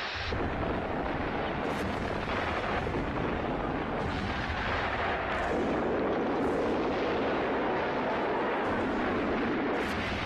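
Battle sound effects of artillery fire and shell explosions that merge into one continuous, steady din. No single shot stands out.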